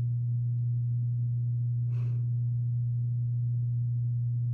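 A loud, steady low electrical hum, one unchanging tone, with a brief faint hiss about two seconds in.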